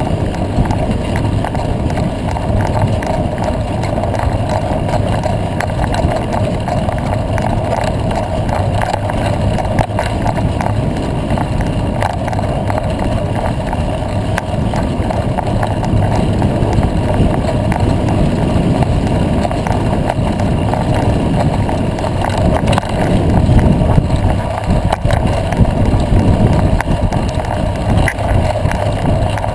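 Bicycle riding fast over a dirt road: a steady rush of tyre noise and wind on a bike-mounted microphone, with constant small rattles and clicks, swelling louder about two-thirds of the way through.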